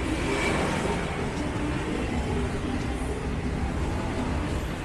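Road traffic noise: the steady running of motor vehicles passing along a city street, swelling a little in the first second.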